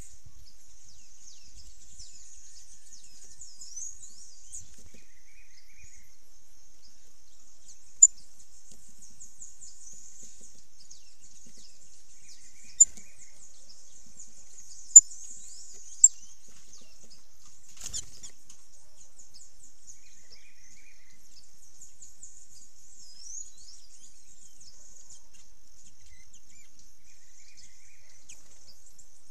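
Steady high-pitched chorus of insects with thin bird chirps over it, and a few short, sharp high peeps through the middle. A single knock comes a little past halfway.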